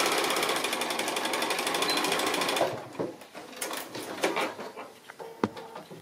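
Bernina sewing machine running at a steady speed, stitching a cotton hem with a rapid, even chatter, and stopping about two and a half seconds in. After that, a few scattered clicks and fabric handling as the work is pulled out from under the presser foot.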